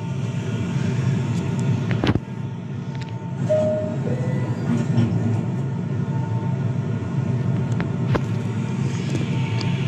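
Wooden toy subway train rolling along wooden toy track: a steady low rumble of its wheels, with a sharp knock about two seconds in and another near eight seconds.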